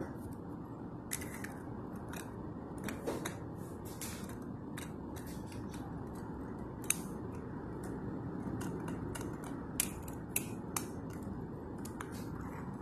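Light plastic clicks and taps, scattered and irregular, as a toy wheeled trash bin is handled and set against the hopper of a First Gear model rear-loader garbage truck, over a steady background hiss.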